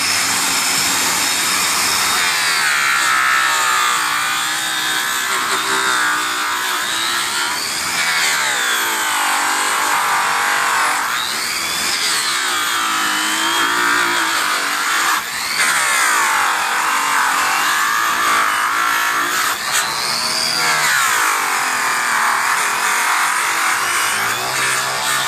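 A 15-amp, 6,000 RPM corded rotary polisher spins a cloth buffing wheel against an aluminum wheel rim. Its steady whine rises and falls in pitch every few seconds as it works across the metal.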